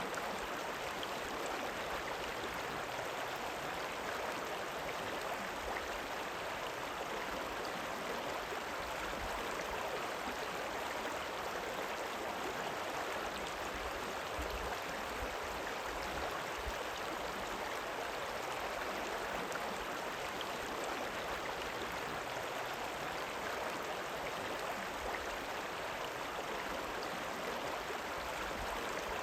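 River water rippling and rushing in a steady, even flow.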